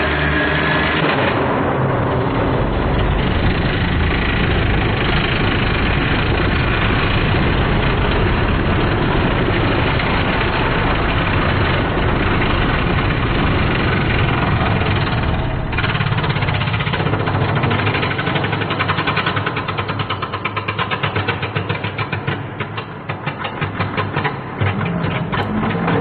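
Vacuum cleaner motor running on the bench, a loud, steady mechanical noise. About two-thirds of the way through the sound changes and breaks into a fast, pulsing rhythm.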